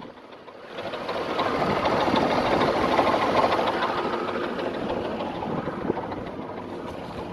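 Nissan VG33E 3.3-litre V6 engine running with a fast, steady knocking from inside the engine. The sound comes up over the first second and then holds steady.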